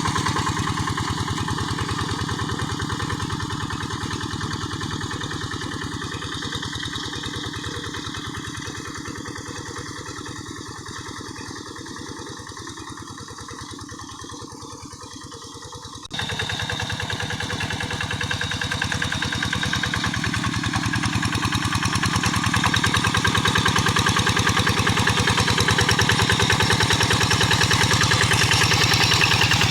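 Quick G1000 hand tractor's single-cylinder diesel engine running steadily under load as it harrows paddy mud. It fades gradually over the first half, then suddenly jumps louder a little past halfway and stays loud.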